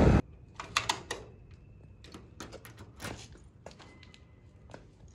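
Loud wind noise cuts off abruptly at the start, followed by a scatter of sharp clicks and knocks as a door is pushed open by hand.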